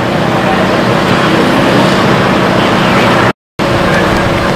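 Loud, steady engine-like drone with a low hum, mixed with general noise. It cuts out completely for a moment about three seconds in, then resumes.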